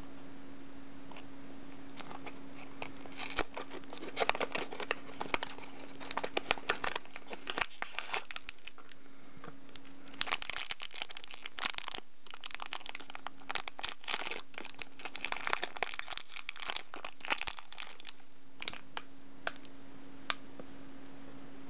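Foil blind-box bag crinkling and tearing as hands open it. The crackle comes in two dense bouts, the second about halfway through, and ends with a few last crinkles.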